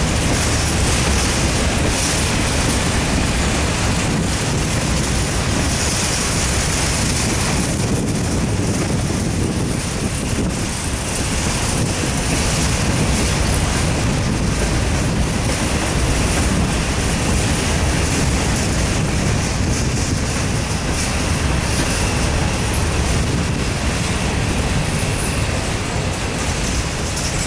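Covered hopper cars of a Norfolk Southern freight train rolling past close by: steel wheels running steadily over the rails.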